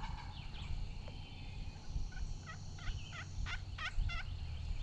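Wild turkey gobbling: a quick run of wavering calls about halfway through, over a steady low rumble.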